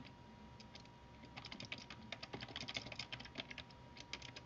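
Computer keyboard typing in quick runs of keystrokes, faint, over a faint steady tone.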